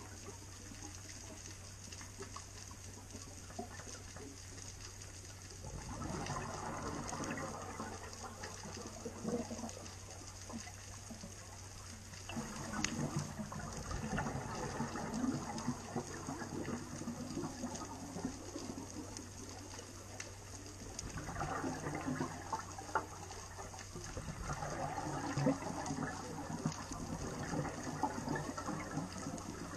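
Scuba diver's regulator exhaust bubbles gurgling underwater in four bursts of a few seconds each, one per exhaled breath, with quieter gaps for the inhales. A low steady hum runs underneath.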